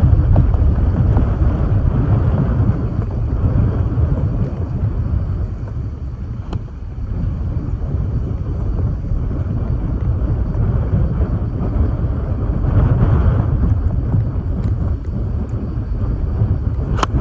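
Strong gusty wind buffeting the microphone: a loud, steady low rumble that swells and eases with the gusts.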